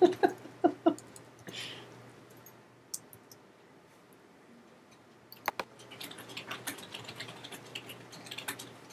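Typing on a computer keyboard, with a few mouse clicks: short clicks in a few scattered bursts, then quicker steady keystrokes through the second half.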